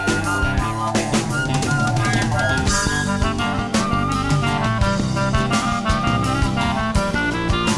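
Background music: a rock band with a drum kit playing a steady beat under pitched instruments.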